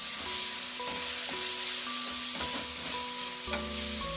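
Pork sautéing in hot oil with garlic and onion, sizzling in the pan.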